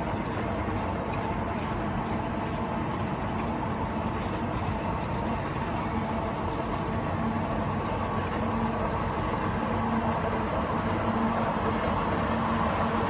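Electric concrete floor grinder running steadily, its diamond polishing pads grinding the concrete floor: a constant mechanical hum with a steady low tone, growing a little louder near the end.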